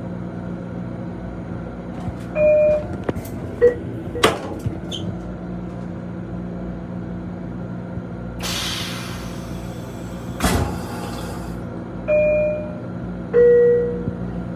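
Steady hum of an M7 commuter railcar heard from inside its restroom. A two-note descending chime sounds twice, about ten seconds apart. Between the chimes come a couple of sharp knocks and a rush of air lasting about a second.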